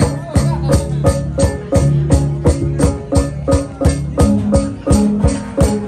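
Central Highlands gong ensemble (cồng chiêng) playing a steady fast beat, about four strikes a second, with the gongs' ringing tones held beneath and shifting in pitch about four seconds in.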